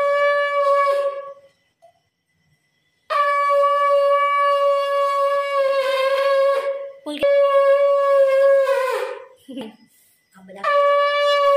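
A child blowing a conch shell (shankh) in long, steady blasts of one clear note, with short silences between them: one ends about a second in, a long blast breaks briefly about halfway and sags in pitch as it ends, and another starts near the end.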